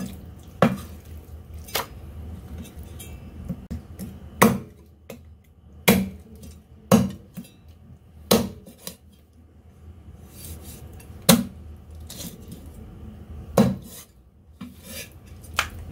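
Cleaver chopping raw chicken through the bone onto a wooden chopping block: about ten sharp chops at uneven intervals, with quieter knife and handling noise between them.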